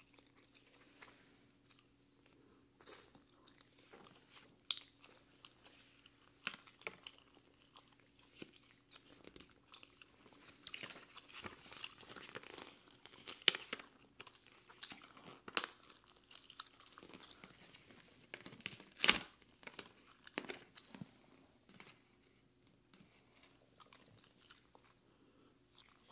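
Close-miked chewing of potato chips: irregular crunches and clicks, a few of them sharp, the loudest about 19 seconds in, over a faint steady hum.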